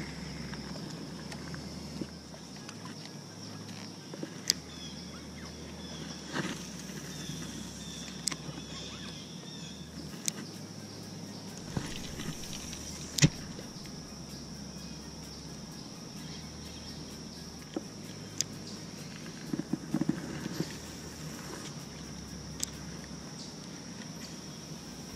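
Quiet outdoor ambience with a steady high-pitched drone, broken by scattered sharp clicks and taps from handling a baitcasting rod and reel.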